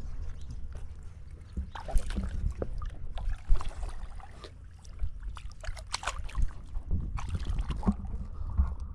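Muddy lake water splashing and sloshing at the waterline as otters swim around, with irregular sharp splashes over a steady low rumble.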